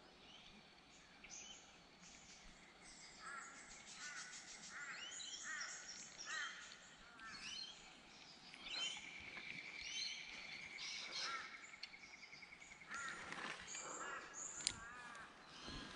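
Several birds calling and chirping, faint, with short repeated notes throughout and one long steady trill in the middle. A single sharp click near the end.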